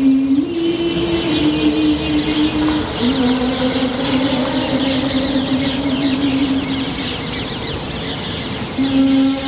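A single voice chanting long held notes, each kept at one pitch for a second or several before stepping up or down to the next, over a dense chatter of birds in the trees.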